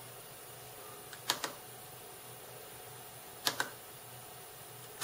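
Small push-buttons on a bench oscilloscope being pressed, three double clicks about two seconds apart, over a faint steady hum.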